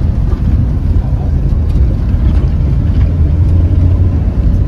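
Steady low rumble of a moving road vehicle: engine and road noise while driving.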